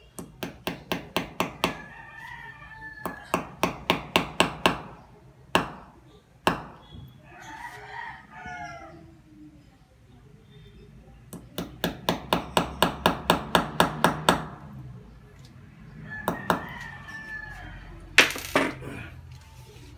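Hammer tapping a nail into a wall in quick runs of strikes, about four or five a second, with pauses between the runs and a few single blows. A louder brief noise comes near the end.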